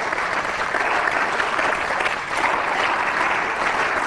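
Many people applauding at a steady level.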